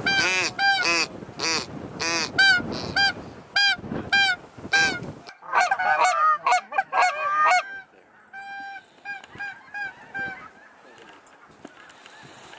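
A goose call blown by a boy in quick, regular honks for about five seconds. A dense stretch of overlapping goose honking follows, then fainter, scattered honks that die away.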